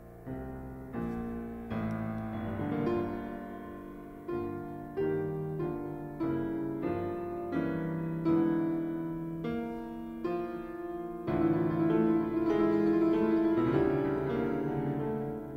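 Classical piano music: separate struck notes and chords about once a second, swelling into a louder held passage about two-thirds of the way through.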